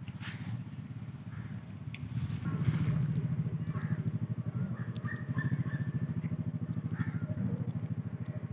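A small engine running steadily with a rapid, even beat, getting louder about two and a half seconds in, with a few brief sharp clicks over it.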